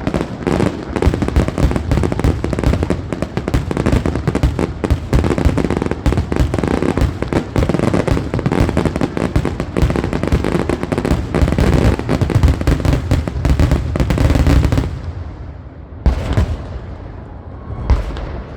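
Fireworks grand finale: a dense, continuous barrage of shells bursting with crackling, which stops suddenly about fifteen seconds in, followed by a few separate booms.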